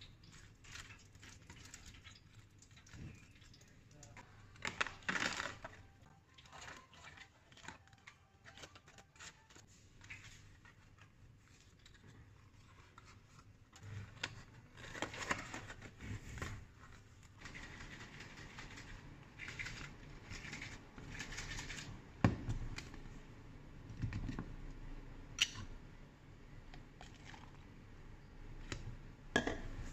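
Handling sounds of takeaway food packing: tongs and fried chicken wings scraping and knocking in a cardboard takeaway box, and the box being folded shut, heard as scattered rustles, scrapes and a few sharp clicks.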